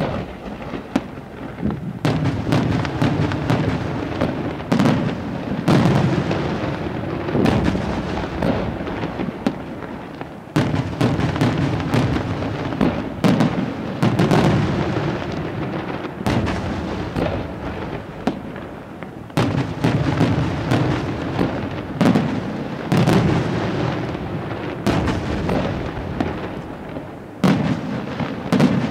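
Aerial firework shells bursting in rapid succession: a dense, continuous barrage of booms and sharp cracks with rolling echo, easing briefly twice before fresh, louder volleys.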